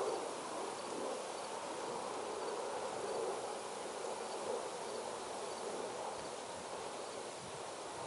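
Steady distant drone of a combine harvester running as it harvests corn across the field.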